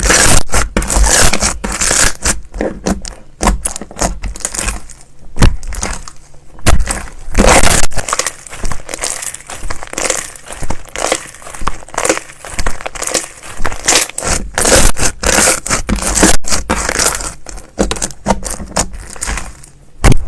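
Slime being squished, pressed and stretched close to the microphone, giving a dense, irregular run of small crackles and pops.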